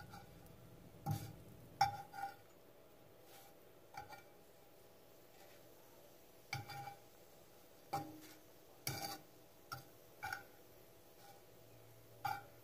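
Metal fork tapping and scraping against a frying pan while flipping pieces of lion's mane mushroom: about ten short, irregular clicks and clinks.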